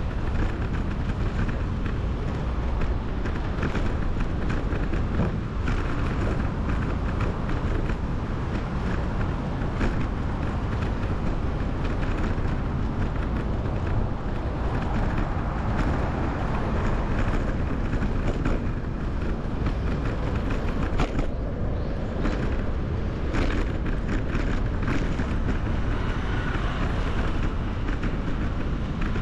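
Steady wind and road noise from riding a bicycle through city streets, the wind buffeting the microphone, with traffic underneath.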